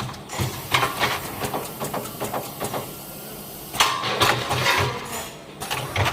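Automatic pouch packing machine running: a string of mechanical clicks and knocks, with louder bursts of noise about four seconds in and again near the end.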